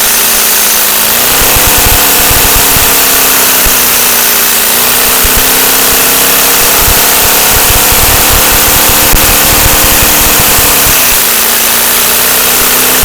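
LEGO two-cylinder boxer vacuum engine running at high speed, its crankshaft and pistons clattering rapidly. Over it is a steady rush of suction air and a whine that steps up and down in pitch a few times.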